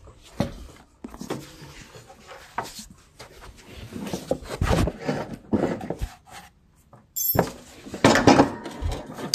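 Irregular clanks, knocks and scrapes of steel parts under a Craftsman riding mower, worked by hand while the deck belt is slipped back off to fit a deck part. The loudest clatter comes about eight seconds in.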